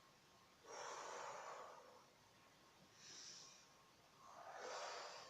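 Faint deep breathing during a breathing exercise: a long in-breath about a second in, a short airy breath around three seconds, and another long breath near the end.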